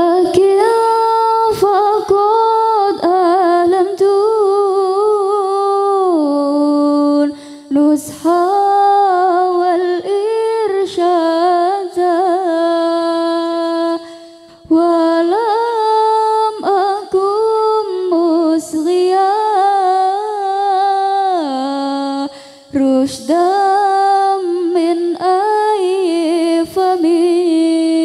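A woman's voice singing a slow Arabic song of gratitude to father, mother and teachers, unaccompanied, in long held and ornamented notes. The phrases break off briefly every several seconds.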